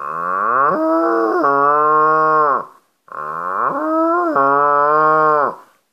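A man imitating a cow's moo through a hand cupped over his mouth and nose: two long lowing calls, each sliding down in pitch at the start, then held steady before falling away.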